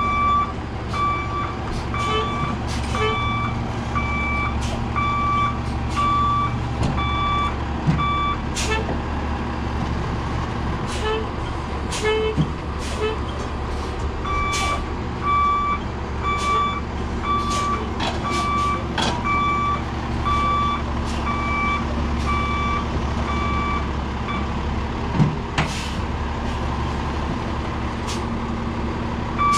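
Roll-off truck backing up: its reversing alarm beeps about once a second over the steady low running of its Cummins diesel. The beeping stops for about five seconds partway through and then resumes. Occasional sharp clanks sound throughout.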